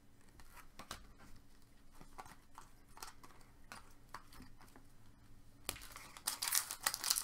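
Trading cards and packaging being handled with scattered soft clicks and rustles, then a foil card pack's wrapper crinkling and tearing open from about six seconds in, growing louder.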